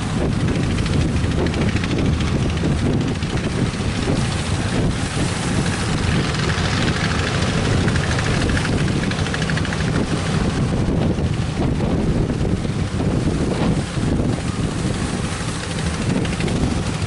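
Strong wind buffeting the microphone over breaking surf, a steady loud rush with a swell of wave noise in the middle.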